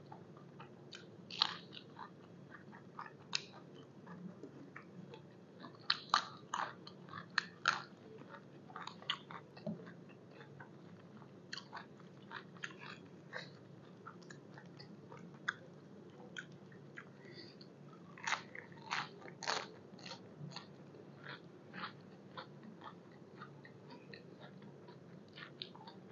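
Close-up chewing and crunching of crisp raw vegetables, sharp crunches coming in clusters with pauses between, over a steady low hum.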